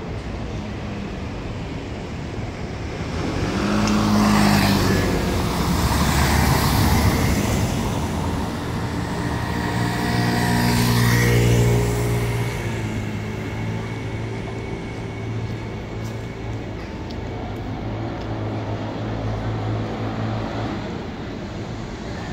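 Town street traffic: a motor vehicle passes close by about four seconds in, and another passes around eleven seconds in, each with an engine hum that swells and fades. A lower engine hum carries on afterwards and stops near the end.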